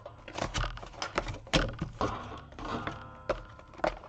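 Irregular clicks and light taps of things being handled on a desk, about a dozen over a few seconds.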